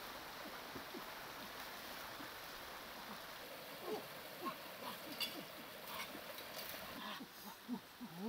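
Forest stream flowing over rocks, a steady rush of water, with a series of short low animal calls that grow louder and more frequent about halfway through, and a few sharp clicks near the end.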